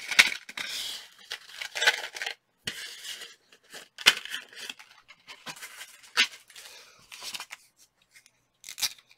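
Cardboard-and-plastic coin-cell blister packs being handled and torn open: a series of sharp cracks and snaps, about five, with papery rustling between them.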